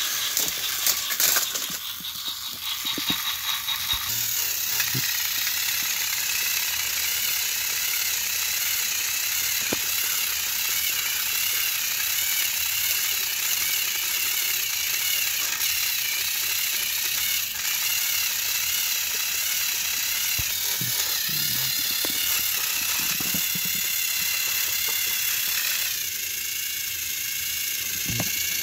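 Motorized toy train engines running on plastic track: their small electric motors whine with a wavering pitch and their gears rattle as two engines push against each other head-on. A few clicks about a second in.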